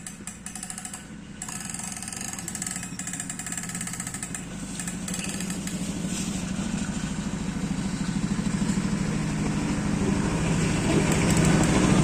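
An engine running with a fast, even pulse, growing steadily louder.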